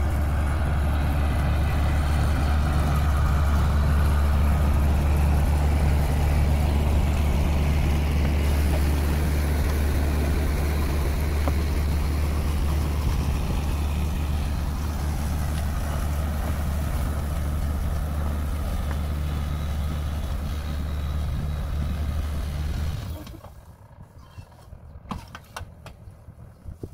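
Diesel tractor engine running steadily under load, an unhurried, even tractor sound, as it pulls a rotary tiller with a ridge-forming plastic-mulch layer. Near the end the engine sound drops away sharply to a faint background with a few scattered knocks.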